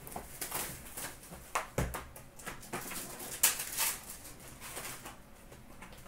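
Trading cards and foil pack wrappers being handled while hockey card packs are opened: irregular rustling, flicking and crinkling. A sharper knock comes a little under two seconds in, and the loudest crinkle comes about halfway through.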